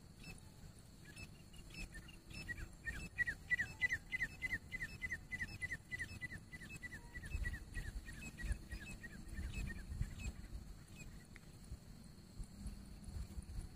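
Grey francolin calling: a long, fast run of short, high, downward-slurred notes, about four a second, which fades away about ten seconds in. A low rumble runs underneath.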